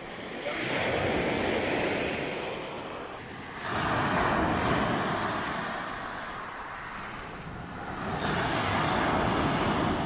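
Sea waves breaking on the shore: three surges of rushing surf a few seconds apart, with quieter lulls between them.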